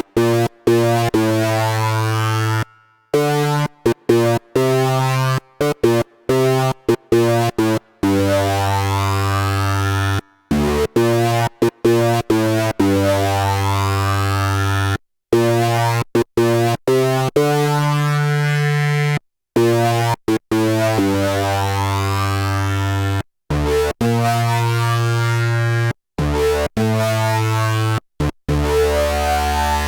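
Vector digital synthesizer playing sustained chords and short stabs over a deep bass note, its overtone-rich tone colour sweeping and shifting as the sound is morphed. The notes stop abruptly into brief silences many times.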